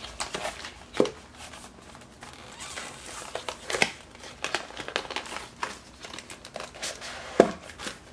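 A cardboard box and its paper card insert being opened and handled: scattered rustling and small clicks, with a sharper knock about a second in and another near the end.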